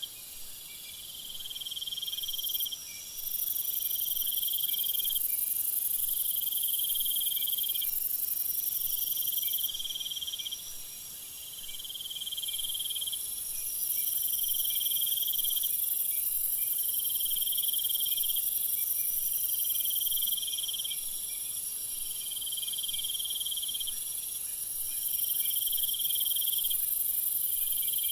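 Meadow insects chirping: a trill repeating in bursts of a second or so, about every two seconds, over a steady high-pitched hiss.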